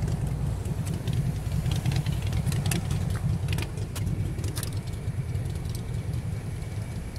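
Steady low rumble of road traffic and car engines, with a scatter of light clicks between about one and five seconds in.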